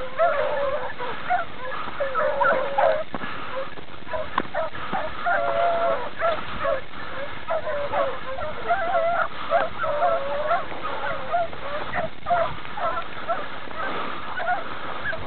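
A pack of beagles baying, several voices overlapping continuously: hounds giving tongue as they follow a hare's scent.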